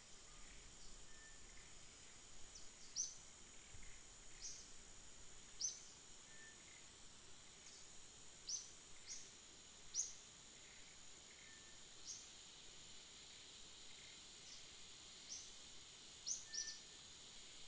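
Faint bird chirps, short and high, a few every couple of seconds, over a steady high-pitched insect-like hum.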